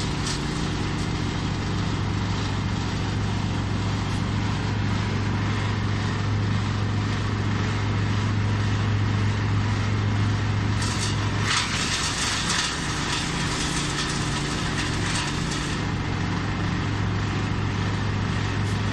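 Wood chipper running steadily, its engine humming under a constant noisy churn as branches and stems are shredded, with a few brief louder rushes about two-thirds of the way through.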